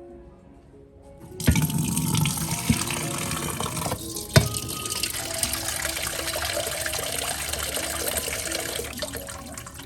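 Kitchen tap running into a sink: the water comes on with a knock about a second and a half in and runs steadily, easing off near the end. Two more sharp knocks of things in the basin, the loudest about four seconds in.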